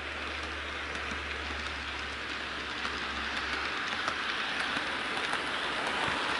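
HO scale model train rolling past on its track: a steady whirring rush of small metal wheels on the rails, with faint scattered clicks, and a low hum underneath that drops away a little over halfway through.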